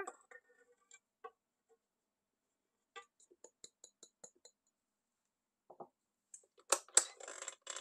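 Faint clinks and light ticks as icing sugar is tipped from a glass bowl into a stainless steel stand-mixer bowl, then a louder clatter lasting about a second near the end.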